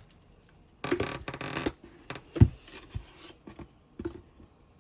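Powdered milk being scooped out of its container: a second or so of scraping and rustling, then a sharp knock about two and a half seconds in, with a few light clicks.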